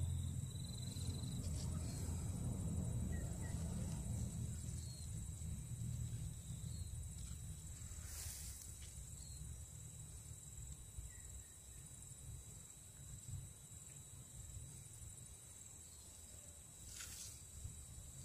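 Faint outdoor garden ambience: a low rumble on the microphone, easing after the first few seconds, under a steady high-pitched whine, with two brief rustles of the pepper plant's leaves.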